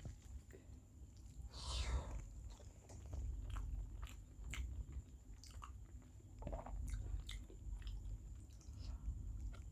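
Close-up chewing and mouth sounds of someone eating rice with small-fish curry, with many short wet clicks and smacks and a longer rustling smear about two seconds in.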